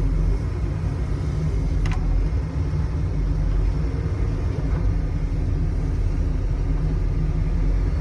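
A loader's engine running steadily, low and even, with no change in speed.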